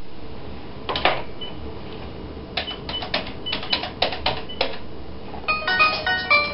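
Buttons being pressed on a wall-mounted telephone keypad: a couple of sharp clicks about a second in, then a quick run of key clicks, several followed by a short high beep. Music with a run of quick notes starts near the end.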